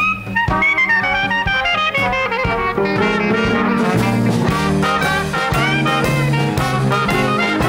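Live jazz band playing a blues with trombone, trumpet, banjo and drums, the trombone playing a melodic line in front. The ensemble grows fuller and denser from about four seconds in.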